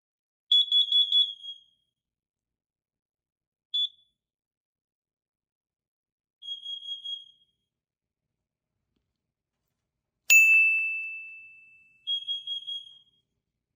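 Kidde smoke and carbon monoxide alarm sounding groups of about four quick, high-pitched beeps, with a single short beep between them, in the four-beep pattern it uses for carbon monoxide. About ten seconds in there is one sharp, ringing ding that fades away over about a second and a half.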